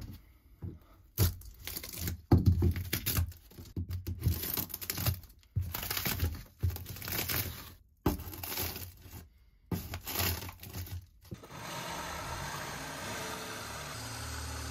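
Rotten, water-softened plywood subfloor being scraped and torn out by hand, in irregular bursts of tearing, crunching and scraping. About eleven seconds in this gives way to a steady motor sound: a reciprocating saw cutting a line across the plywood floor.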